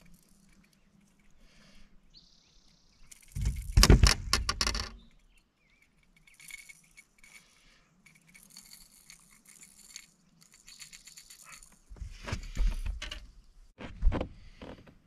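Handling noises while a small spotted bass is unhooked: a loud burst of rattling and clicking about three seconds in, softer rustling and scraping through the middle, then a few heavier knocks near the end.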